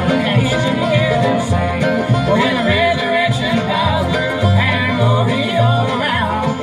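Live acoustic bluegrass band playing an instrumental break, with banjo, bowed fiddle, acoustic guitars and an upright bass keeping a steady pulse.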